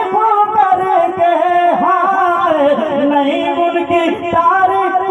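A man singing a naat (devotional Urdu praise-song) into a microphone over a PA system, holding long notes that glide and waver.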